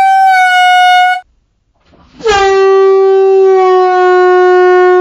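Canned air horn blasting twice: a short blast, then, after about a second's gap, a longer, lower-pitched blast lasting about three seconds.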